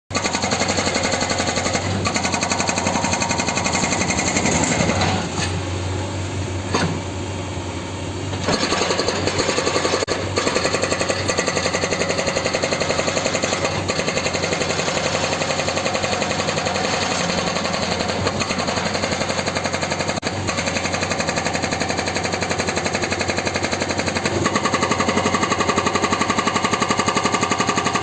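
Hydraulic rock breaker on a JCB 3DX backhoe loader hammering in a rapid, steady percussive rattle, with the machine's engine humming underneath. The hammering softens for a few seconds, about five to eight seconds in.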